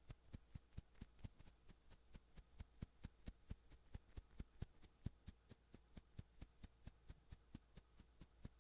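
A rapid, even series of faint sharp clicks, about four a second.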